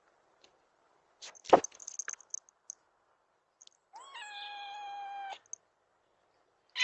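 A domestic cat meowing once outside the door, a single long call of over a second that rises at its start and then holds steady. A sharp knock comes about a second and a half in, with small high clicks after it.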